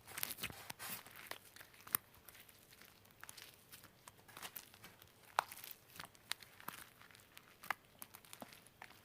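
Green slime being pressed and drawn through by fingers, giving irregular sticky clicks, pops and crackles.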